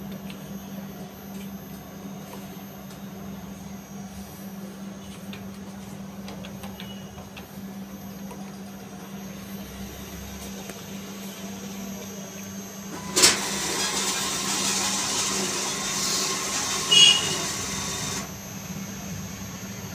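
Diebold cash machine's internal mechanism kicking in with a sharp clack about two thirds of the way in, then whirring evenly for about five seconds, with another clack near its end, and cutting off suddenly: the machine handling a cash withdrawal. Before that, only faint keypad presses over a steady hum.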